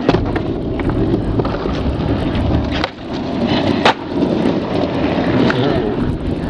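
Skateboard wheels rolling over concrete with a steady rumble, broken by sharp clacks of the board striking the ground, the loudest about four seconds in.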